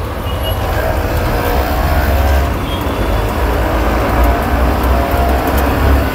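Inside the cabin of a moving city bus: steady low engine rumble and road noise as it drives along.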